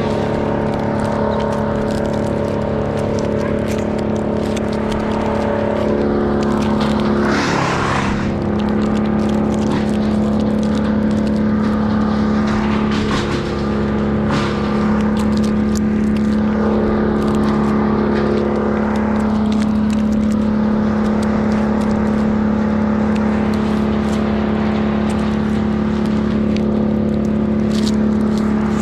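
An engine running steadily at high speed. About seven seconds in, its pitch dips and recovers, with a short burst of rougher noise, and it then holds a steady note again.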